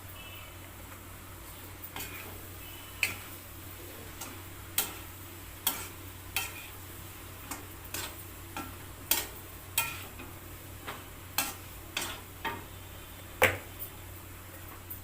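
A cooking utensil clacking against a pan of frying vegetables: about fifteen sharp knocks at uneven intervals, the loudest near the end.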